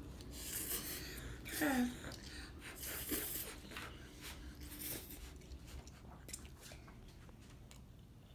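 Children slurping instant noodles: several short slurps in the first five seconds, one with a brief small voice sound about two seconds in, then only faint mouth noises.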